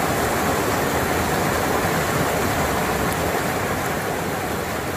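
Steady rush of floodwater pouring across a waterlogged road.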